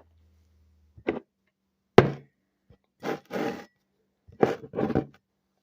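A sharp knock about two seconds in, the loudest sound, after a faint tap, then several short handling noises.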